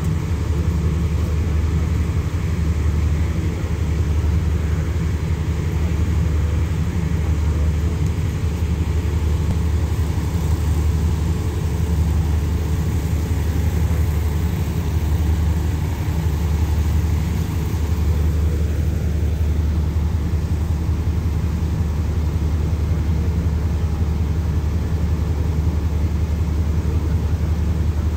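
Steady low drone of an express passenger train's diesel engines idling while it stands at the platform.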